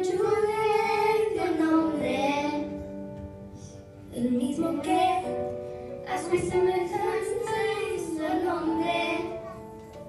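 Young girls singing a song into a microphone over electronic keyboard accompaniment, in sung phrases with a short break about four seconds in.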